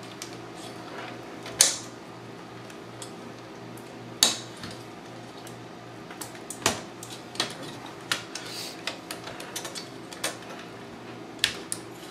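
Sharp plastic clicks and clatter of a power connector being worked onto a hard drive. Several louder clicks are spread through it, with a faint steady hum under it. It is a stiff fit, tougher than expected.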